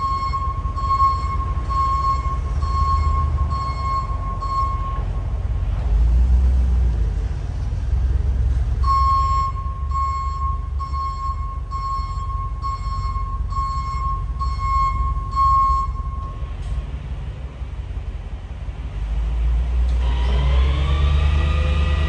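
Tow truck's reverse alarm beeping steadily, a bit more than once a second, in two spells, over the truck's engine running. Near the end a rising whine comes in and levels off.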